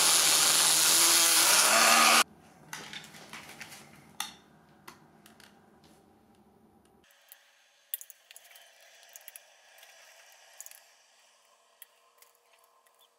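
Cordless rotary tool with a cutoff disc cutting a thin metal strip: a loud, even grinding noise for about two seconds that stops suddenly. Then only faint scattered clicks and taps.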